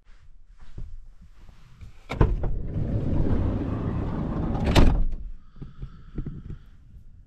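Van sliding side door: a latch click, then the door running along its track for about two and a half seconds, ending in a thud as it stops.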